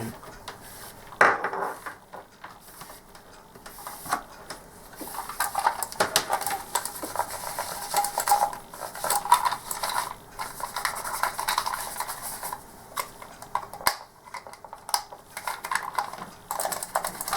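Plastic computer mouse being wiped down and handled with an antibacterial wipe: irregular rubbing and scraping with many small clicks and knocks, one sharper knock about a second in.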